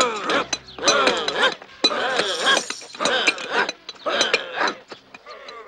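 Cartoon digging sound effects: picks and shovels clinking sharply against rock over and over, with short vocal bursts from the diggers about once a second.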